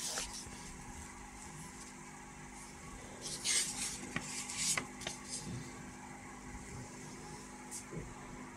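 Paper pages of an old instruction booklet rustling as they are handled and turned, with a few crisp rustles about three and a half and four and a half seconds in, and small clicks.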